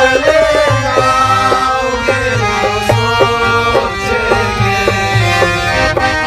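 Live folk-style music: a dholak hand drum beating out a rhythm under a man singing, with steady held chords from an accompanying instrument.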